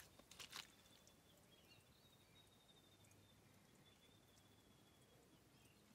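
Near silence: faint outdoor ambience. A few soft rustles come at the start, and a faint thin high tone comes and goes in the middle.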